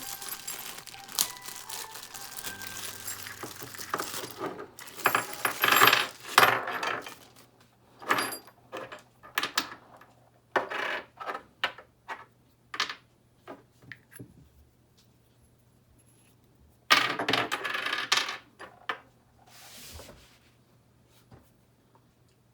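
Metal parts of a plastic-pipe socket welder kit clinking and knocking together as they are handled, mixed with rustling of packaging. It begins as a dense clatter, breaks into separate clicks and knocks, and ends with a brief burst of rustling.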